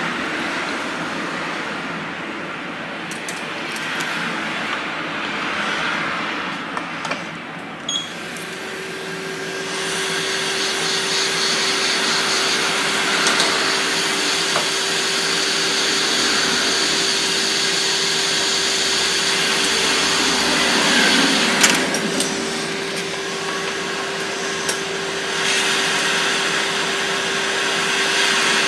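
Hot air rework station blowing onto flux-coated capacitors on a logic board to desolder the partially shorted one: a steady rush of air. A fan hum comes in about eight seconds in and grows louder about two seconds later.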